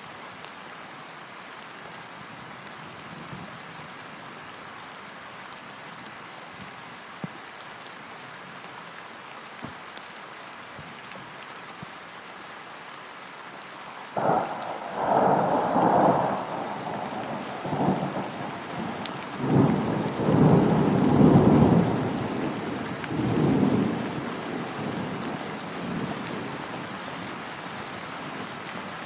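Steady rain falling on a lake. About halfway through, a thunderclap breaks in suddenly and rolls on in several loud surges for about ten seconds, then fades back under the rain.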